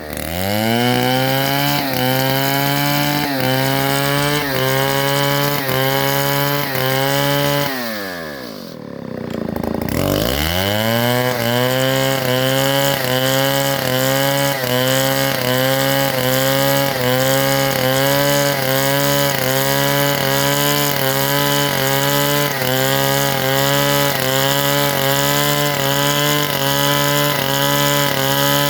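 Chainsaw engine running hard at high revs, its pitch wavering slightly in a regular rhythm of about three times every two seconds. About eight seconds in it drops sharply in pitch and loudness, then revs back up about two seconds later and runs on steadily.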